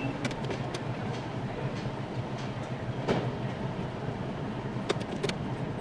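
Service workshop background noise heard from inside a parked car: a steady hum with a few sharp clicks and knocks scattered through it.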